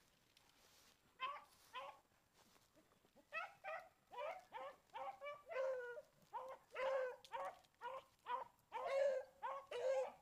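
Hunting dog barking repeatedly as it runs a rabbit's trail. Two barks come about a second in, then a steady run of barks at about two a second.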